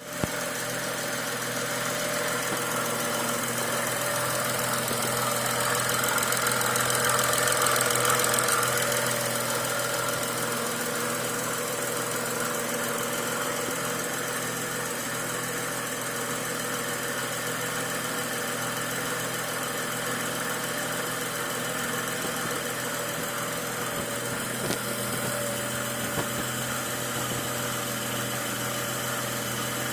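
BMW N55 turbocharged straight-six engine idling steadily after a rebuild, with a repeating, resonating noise from the middle of the cylinder head area whose cause the owner does not know. It grows louder for a few seconds early on, then settles.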